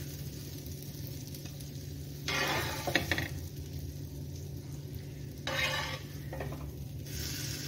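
Mustard oil sizzling steadily in a tava as fried brinjal slices are lifted out onto a plate, with two louder brief bursts of noise about three seconds apart.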